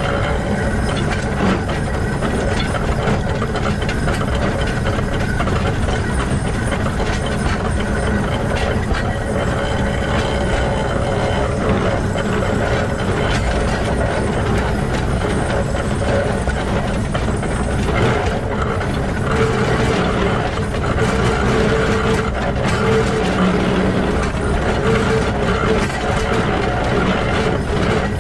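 Running gear of the Shay geared steam locomotive SL-31 heard up close: the bevel pinions and bull gear on the truck meshing as the wheels roll on the rails, a steady dense mechanical clatter and rumble. A faint wavering tone comes and goes in the second half.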